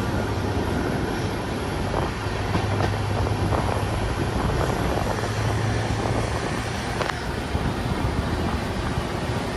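Train running past: a steady rumble with a low hum and a few faint clicks.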